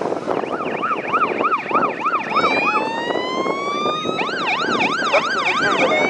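Electronic emergency-vehicle sirens of an approaching fire-truck and police convoy, switching between a fast yelp of about four up-down sweeps a second and a slow rising wail, over the rumble of the passing trucks.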